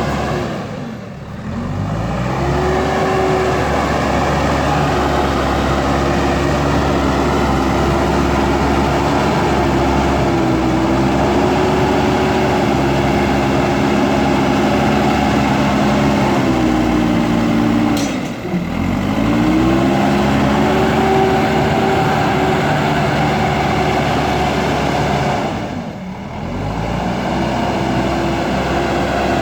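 JCB backhoe loader's diesel engine running hard under working load. Its pitch falls and climbs back three times: about a second in, past the middle, and near the end.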